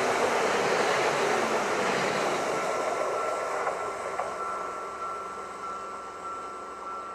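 Electric passenger train passing close at speed and then running away, its rushing wheel-and-rail noise fading from about halfway through. A thin steady high tone comes up as the rush dies down.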